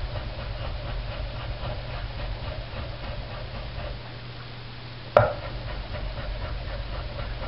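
Knife chopping blanched tomato into small dice on a cutting board in quick, even strokes. The chopping goes faint about four seconds in, a single sharp knock comes just after five seconds, then the chopping resumes. A steady low hum runs underneath.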